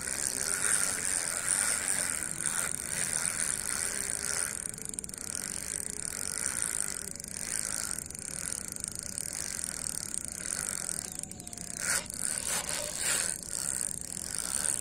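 Spinning reel being cranked steadily, its gears and rotor whirring as line is wound in, with a couple of sharp clicks near the end.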